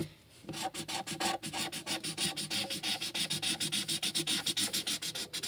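A marker scribbling on paper in quick back-and-forth colouring strokes, a rapid scratchy rubbing of several strokes a second that starts about half a second in.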